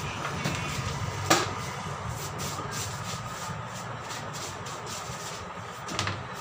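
Tyre being handled on a tyre-changing machine: faint rubbing over a steady low hum, with one sharp click about a second in.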